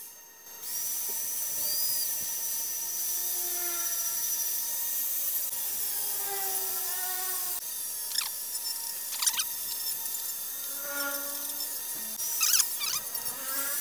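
Power carving tool running and cutting into wood, its whine shifting in pitch with several quick sweeps as it bites in and lifts off.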